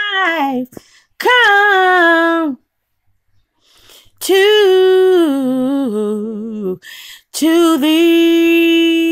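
A woman singing solo and unaccompanied: four long, drawn-out phrases of held notes with vibrato, each sliding down at its end, separated by short pauses.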